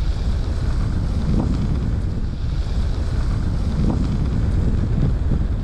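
Wind buffeting the microphone of a fast-flying FPV drone: a steady, loud rush with most of its weight in a low rumble.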